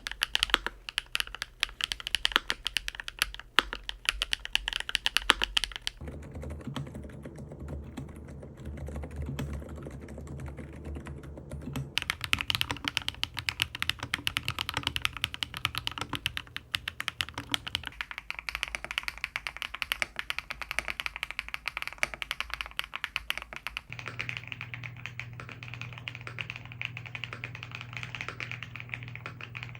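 Continuous fast typing on a mechanical keyboard. The switches change about every six seconds: HMX Hyacinth V2U, TTC 저월백, HMX Macchiato, HMX Cheese, then BSUN The Green. The second set sounds duller and deeper than the others.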